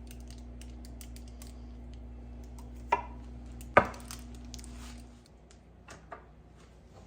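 Kitchen handling sounds: two sharp knocks a little under a second apart, the second the louder, among light ticks and taps. A steady low appliance hum stops about five seconds in.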